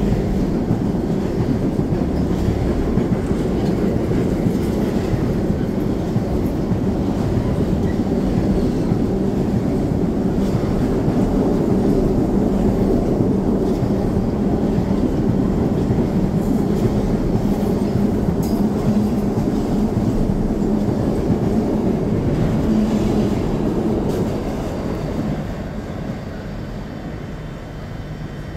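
Container wagons of a freight train rolling past close by: a steady rumble of wheels on rail with a low hum, dropping away about 25 seconds in as the end of the train passes.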